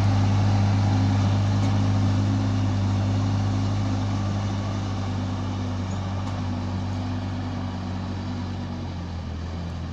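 A farm machine's engine runs steadily in a rice field, with a low, even drone that slowly grows fainter.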